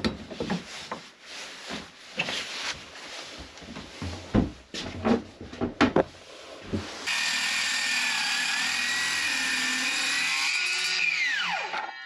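Knocks and clicks as a wooden web frame is clamped in a steel bench vise. Then a handheld circular saw starts suddenly, runs for about four seconds cutting the timber, and its blade spins down with a falling whine near the end.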